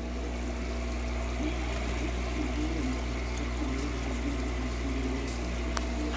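Water trickling from a feed tube into a hydroponic bucket, a steady running-water sound over a constant low hum.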